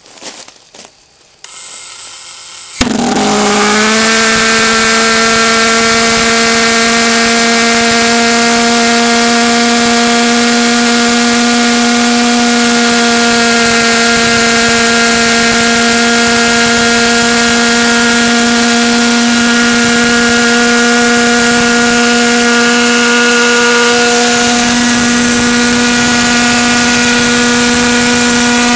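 Propane-fuelled valveless pulsejet (Beck Technologies 4 lb thrust Thermojet) self-starting on spark and fuel: a few sharp clicks and a short hiss, then about three seconds in it lights abruptly. It runs at a loud, steady, deep buzz whose pitch settles within a second and holds, shifting slightly near the end.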